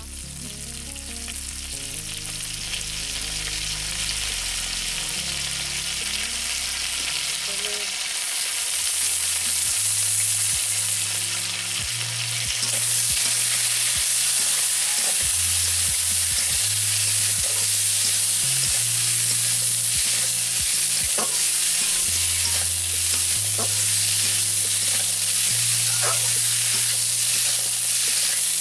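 Vegetables frying in hot oil in a metal kadai, a dense sizzle that grows louder about eight seconds in and again around twelve seconds. A steel spatula stirs them, with scattered scrapes and clicks against the pan.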